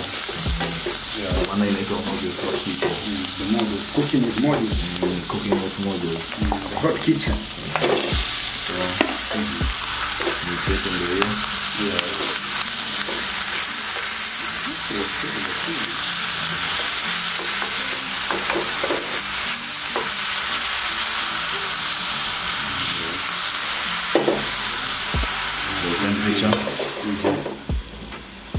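Sliced onions and green peppers, then raw pork pieces, sizzling in a hot frying pan, stirred with a cooking spoon that knocks and scrapes against the pan many times. Near the end the sizzle drops suddenly as a glass lid goes on the pan.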